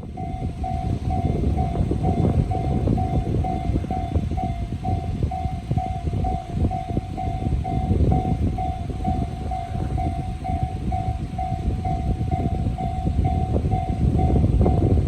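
Japanese level-crossing warning bell ringing, an electronic clang repeating about twice a second, over the loud low rumble of a passing train.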